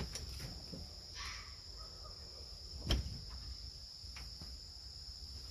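A steady, high-pitched insect chorus, likely crickets, trilling without a break. There is a short rasping noise about a second in, and a single sharp knock about three seconds in.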